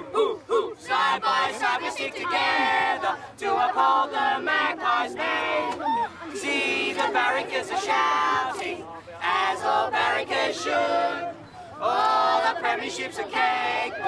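A team of young boys singing their team song together in a huddle, many voices in phrases with short breaks between them.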